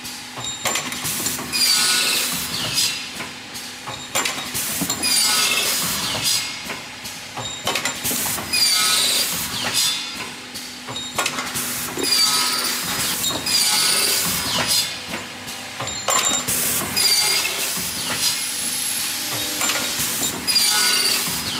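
Automatic hinge-making machine cycling: pneumatic cylinders hiss as they exhaust air, with sharp metallic clicks from the tooling, repeating about every two seconds over a steady hum.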